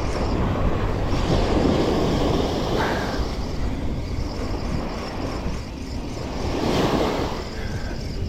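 Wind buffeting the microphone over the wash of sea waves, a steady rumbling noise with no distinct clicks or tones.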